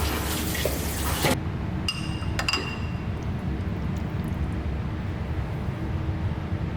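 Two ringing clinks of tableware, about half a second apart, over a steady low hum.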